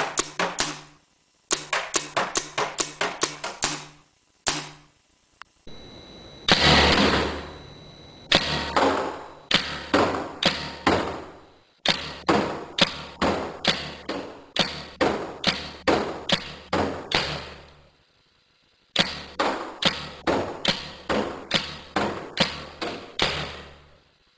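Piranha GTI .68 caliber paintball marker firing rapid volleys, about five or six sharp shots a second, with brief pauses between runs. About six seconds in there is a longer, louder rushing noise lasting a couple of seconds.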